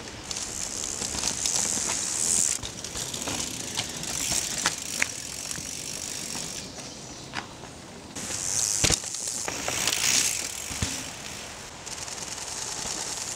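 Mountain bikes going past on a dirt forest trail: knobby tyres crunching over dirt and dry leaves, with clicks and rattles from the bikes, the noise swelling and fading twice as riders pass.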